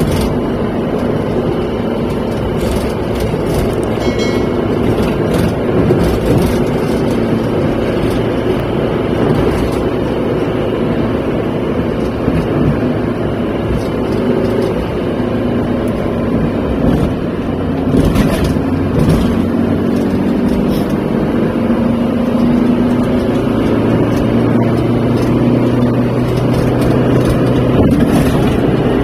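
Car engine hum and tyre-on-road noise heard inside the cabin while driving at a steady speed.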